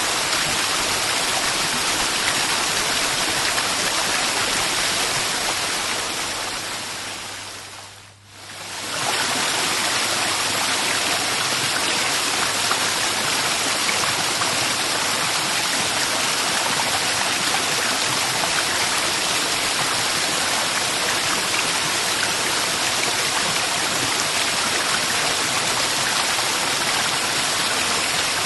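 Waterfall, a steady rush of falling water. It fades away to a brief dip about eight seconds in and comes straight back.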